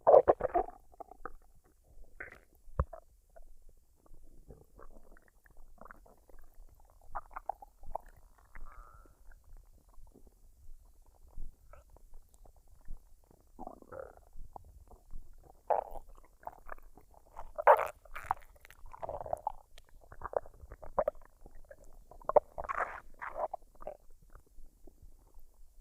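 A woman's stomach gurgling and rumbling as it digests a meal, in irregular short bursts with quieter stretches between, the loudest clusters coming about two-thirds of the way through and again near the end.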